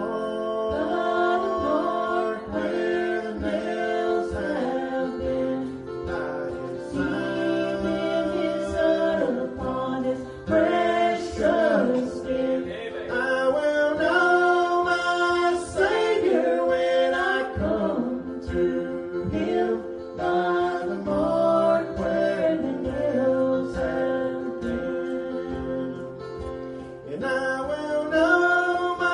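Southern gospel group singing in vocal harmony over instrumental accompaniment.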